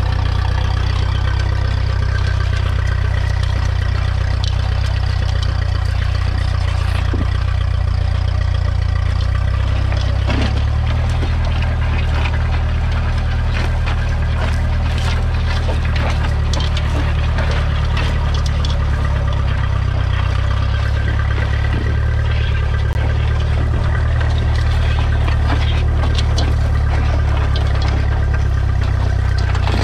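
1953 Ferguson TED20's 2.1-litre four-cylinder petrol/TVO engine running steadily as the tractor pulls a two-furrow mounted plough through the soil, its note shifting slightly about ten seconds in, with scattered light clicks.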